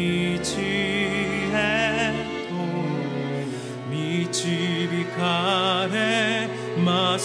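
A slow piece of music: a melody of long notes sung or played with wide vibrato, over held low accompanying notes.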